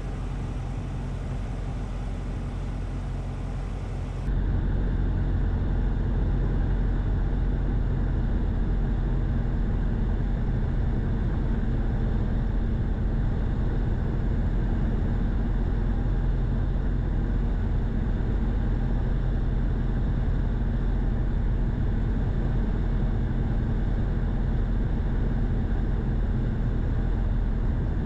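Single-engine light aircraft's engine and propeller running steadily, a constant drone heard inside the cabin of a Cessna 177RG Cardinal on final approach. About four seconds in it turns abruptly louder at an edit.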